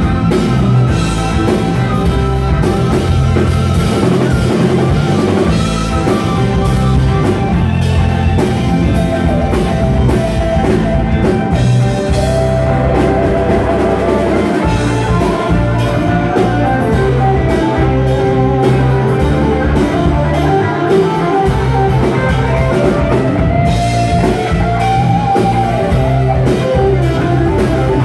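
Live jam-rock band playing loudly: electric guitars over bass and a drum kit, with a wavering melodic guitar line running on top.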